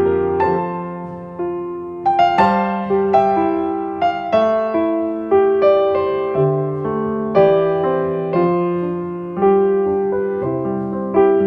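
A piano-sound iPhone ringtone melody playing: notes and chords struck in a steady rhythm, about one or two a second, each ringing and fading before the next.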